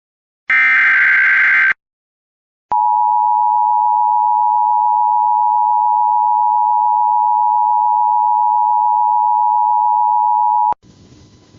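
Emergency Alert System alert: the last digital SAME header data burst, about a second long, then after a second's pause the steady EAS attention tone sounds for about eight seconds and cuts off into faint hiss. The tone signals that a spoken emergency message is about to follow.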